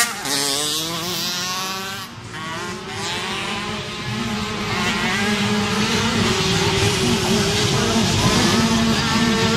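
Small 50cc two-stroke motocross bike engines revving hard, their pitch rising and falling as the bikes accelerate and pass.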